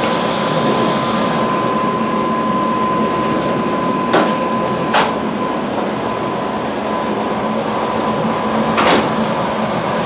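Running noise of a Tobu 100 series Spacia electric train heard from inside the car: a steady rumble, with a thin steady tone over the first half. Three sharp knocks stand out about four, five and nine seconds in.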